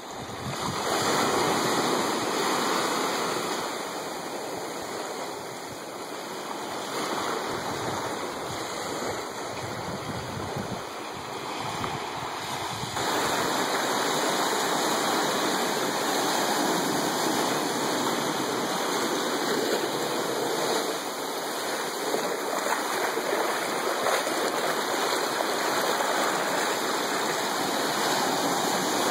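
Atlantic Ocean waves washing onto a sandy beach, swelling and ebbing. About halfway through this gives way to a steadier rush of surf breaking and foaming among shoreline rocks.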